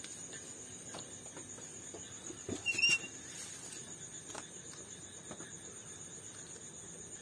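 Crickets chirring in a steady, high, fast-pulsing trill. About two and a half seconds in comes a brief louder knock with a short squeak.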